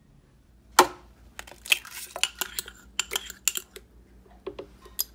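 Kitchenware clattering at a blender jar as ingredients are added: one sharp knock about a second in, then a quick run of clinks and taps, with a few more near the end.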